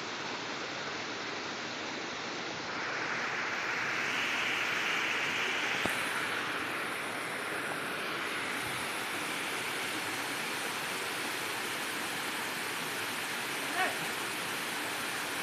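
Shallow rocky stream running and spilling over low rock ledges in a small cascade: a steady rushing hiss of water that grows louder about three seconds in. A short, sharp sound stands out near the end.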